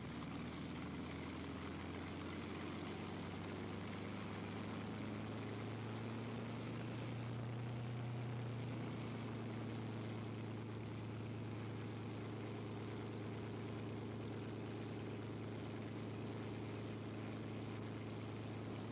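Tsunami air racer's Rolls-Royce Merlin V-12 running steadily on the ground with the propeller turning, a little louder around the middle.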